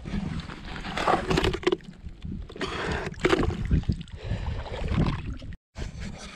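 Shallow water sloshing and splashing in irregular bursts as a mud crab is lifted out of it and feet wade through. The sound drops out for an instant near the end.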